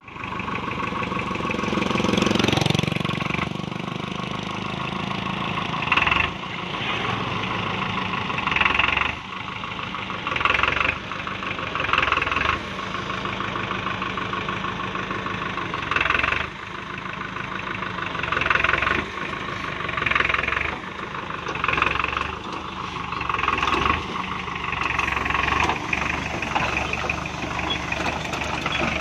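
Farmtrac tractor's diesel engine running under load while its PTO-driven rotary tiller churns through roadside brush and soil, with repeated louder surges of about a second every couple of seconds as the load comes on.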